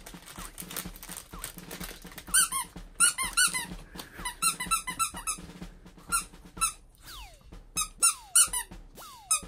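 Long-haired Chihuahua whining in short, high-pitched squeaks, in quick runs of several at a time starting about two seconds in, as it begs excitedly for a toy held above it.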